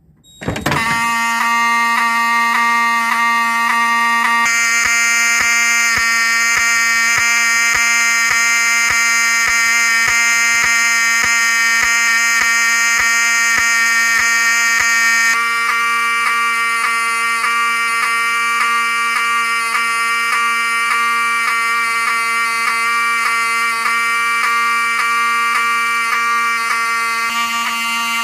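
Pyrotronics HSD-24F horn strobe (a rebranded Wheelock 7002T) set to continuous horn, sounding a steady buzzing tone that starts about a second in, with brief regular skips in the horn each time the strobe flashes.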